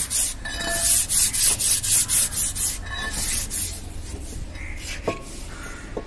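Rapid back-and-forth rubbing strokes, about four a second, fading out after about three and a half seconds, with a single click near the end.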